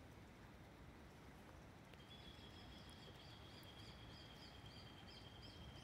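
Near silence with a faint outdoor background. About two seconds in, faint high-pitched chirping from a distant animal starts: a thin steady high tone with quick chirps repeated two or three times a second above it.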